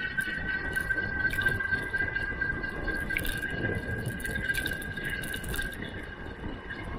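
Wind and tyre rumble from a bicycle rolling fast on asphalt, with a steady high whine over it.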